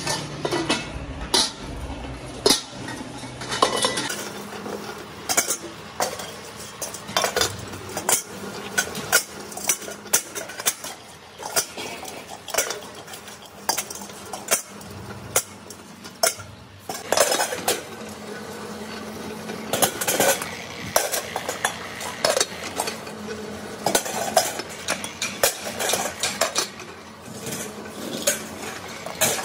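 Pressed steel halves of LPG gas cylinders clattering and scraping as they are handled and worked against a roller machine, in a long run of irregular metallic clanks and clinks. A faint low hum joins about halfway through.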